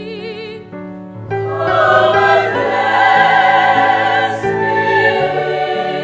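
Choral music: a held note with vibrato, then from about a second in a fuller, louder passage of choir voices that cuts off at the end.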